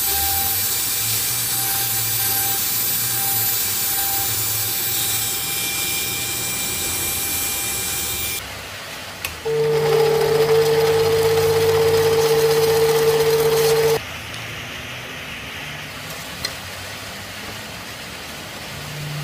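Small electric engraving tool running and cutting into brass: a steady whine with a scratchy hiss. About nine seconds in, a louder machine hum with a steady tone takes over for about four and a half seconds, likely the mini lathe motor, then a quieter steady hum.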